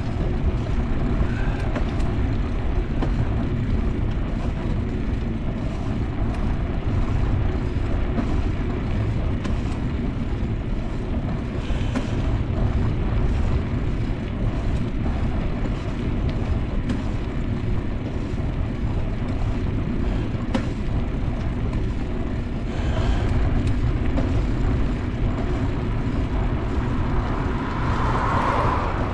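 Steady low rumble of wind buffeting a bicycle rider's camera microphone while riding along a road, with tyre and road noise underneath.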